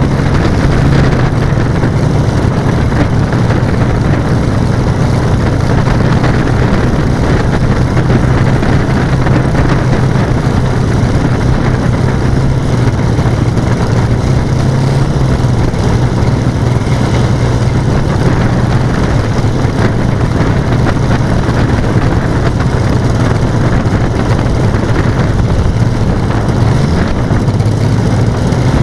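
Engines of a radio-controlled B-17G scale model running with a steady, loud drone, the pitch shifting briefly near the end.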